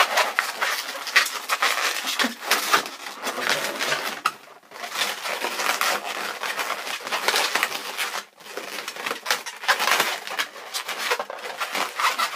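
Inflated latex twisting balloons squeaking and rubbing against each other as they are twisted and pressed together, a dense crackling rub with short pauses about four and a half and eight seconds in.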